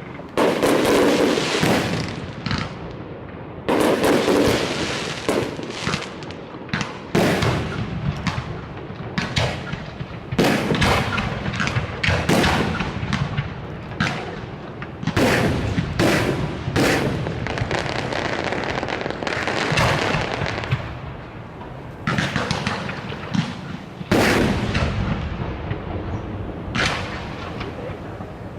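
Aerial fireworks show: a rapid run of shell bursts, loud bangs several a second at times, with crackle and a low rumbling echo between them.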